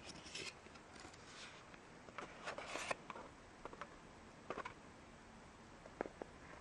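Hands handling a cardboard and plastic blister sample package: faint scattered rubs and scrapes, the densest a little before halfway, with a couple of sharp clicks near the end.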